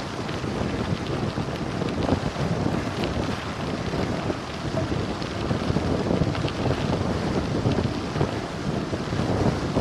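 Wind buffeting the microphone of a helmet-mounted camera during a fast bicycle descent, mixed with the rumble of tyres on a loose gravel road. A few faint clicks can be heard.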